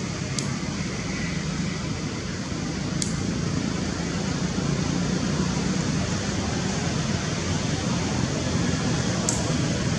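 Steady rushing background noise, a little louder after about three seconds, with three faint, short high clicks.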